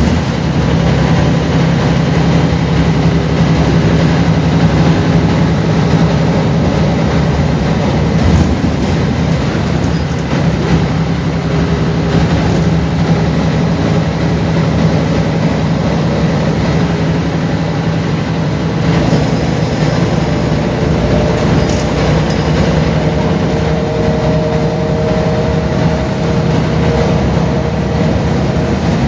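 Mercedes-Benz O405GN articulated city bus running: a steady engine drone with a low hum. From about two-thirds of the way in, a faint higher whine joins it.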